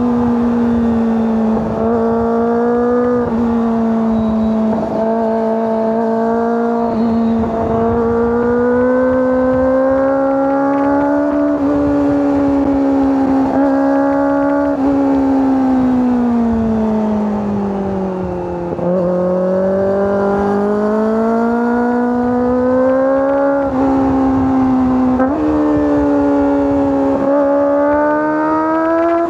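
Kawasaki ZX-25R SE's 249 cc inline-four engine and exhaust under way. The revs rise and fall with several sudden steps in pitch. They sag to their lowest about two-thirds of the way through, then build again.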